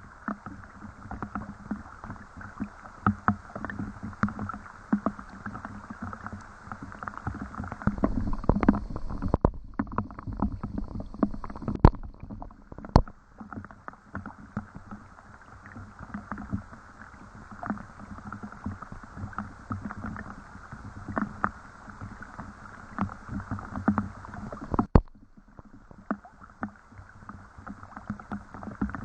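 Rain falling, with many separate drops striking close by over a steady wash of water noise. The sound breaks off abruptly and resumes twice, around ten and twenty-five seconds in.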